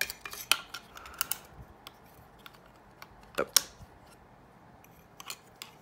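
Scattered short plastic clicks and taps as a HyperTough work light's plastic housing and circuit board are handled and fitted during a teardown. The clicks come in a cluster at first and a loud pair about three and a half seconds in.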